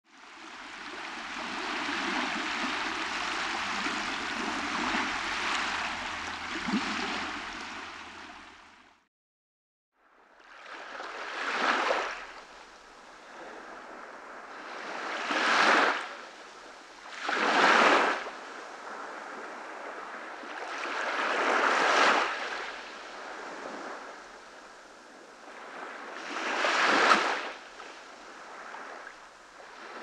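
Small waves breaking gently and washing up a sandy beach, five surges that each swell and fall back every few seconds. Before them, a steady rushing hiss for about the first nine seconds, cut off by a second of silence.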